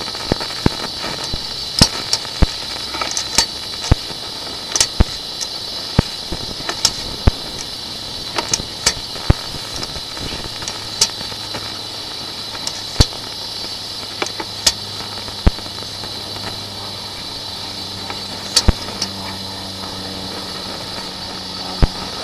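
Steady electronic hiss from a sewer inspection camera's recording, broken by irregular sharp clicks and pops as the camera head moves through the drain pipe. A faint low hum comes in about halfway.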